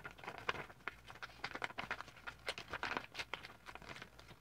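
Sheet of paper being folded and creased by hand into a paper airplane: quick irregular crinkling and rustling, stopping just before the end.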